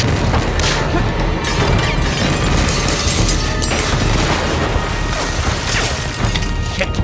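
Action film score music mixed with repeated explosion booms, and glass smashing around the middle as a body crashes through a window.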